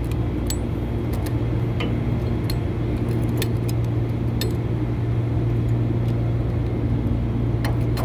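A steady low machinery hum, with scattered light metallic clicks as a gear puller's arms and jaws are handled and set on a cast-iron blower pulley.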